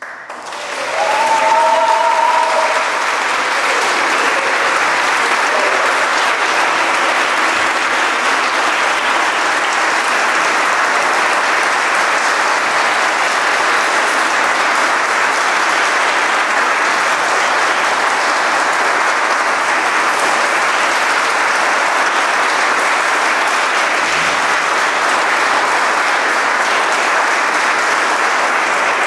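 Audience applause breaking out right after the final chord and going on steadily and evenly, with a short cheer in the first few seconds.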